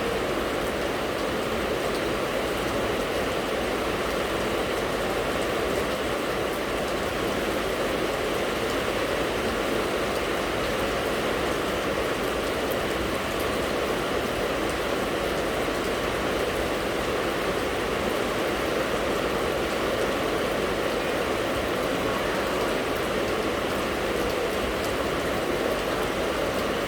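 Steady rainfall, a continuous even hiss of rain.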